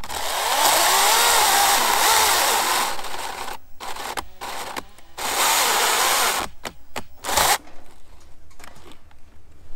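Litheli 40-volt cordless electric chainsaw running in bursts while cutting into a log: a long run of about three seconds with the motor's pitch wavering under load, then a shorter run and a brief blip.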